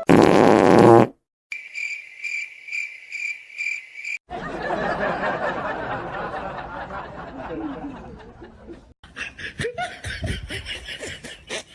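Edited sound effects: a short, very loud burst, then a cricket-chirp effect pulsing about three times a second, then laughter.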